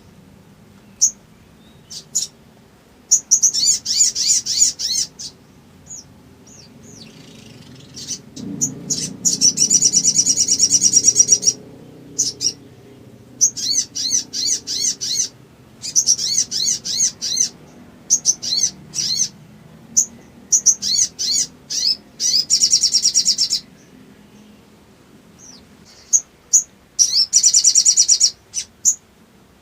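Sogok ontong (sogon), a spiderhunter, calling in loud, high-pitched bursts of rapid chattering notes a second or three long, separated by short pauses and single sharp chips. It is a lure call meant to provoke other birds of its kind into calling.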